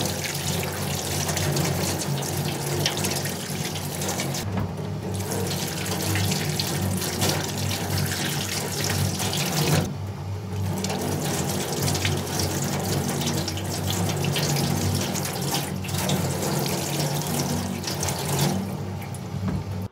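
Kitchen tap running steadily into a stainless steel sink as tomatoes and a red bell pepper are rinsed by hand under the stream.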